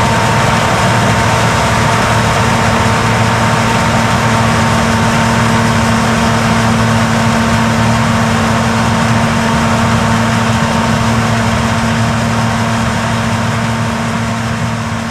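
A John Deere Titan-series combine's diesel engine and machinery running steadily while harvesting corn, a constant hum over a dense mechanical rush. It eases off slightly near the end.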